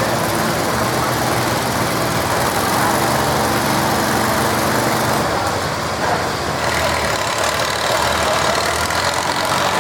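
Farm tractor engine running steadily, its pitch shifting about five seconds in.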